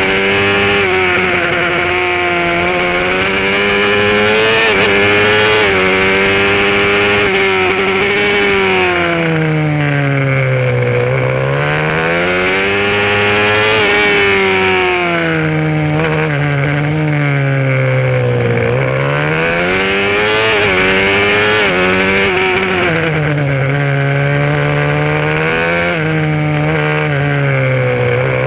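Supermoto motorcycle engine at race pace, heard onboard: the revs repeatedly drop as it slows for corners and climb again as the throttle opens, with the deepest dips about a third and two thirds of the way through.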